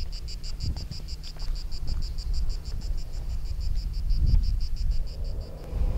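An insect chirping in a fast, even run of short high pulses, about six or seven a second, that stops shortly before the end, over a low rumble.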